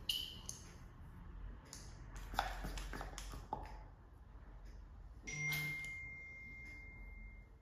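Scattered light clicks and taps of plastic vacuum cupping cups being gripped and shifted on bare skin. About five seconds in, a single chime-like ping rings and fades over a couple of seconds.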